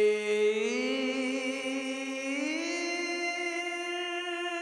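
Soloed lead vocal track from the end of a rock song: a man's single long sung note, without instruments. It slides up in pitch about half a second in and again about two seconds in, then holds.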